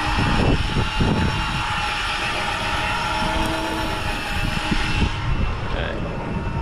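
Steady engine hum of a fishing boat, with wind rumbling on the microphone.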